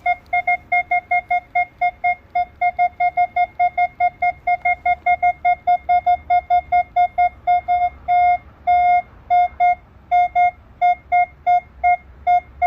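Metal detector's target tone beeping over a single buried-style test target: one mid-pitched electronic beep repeating about four to five times a second, with a few longer held beeps partway through. The detector reads the target as a steady 26.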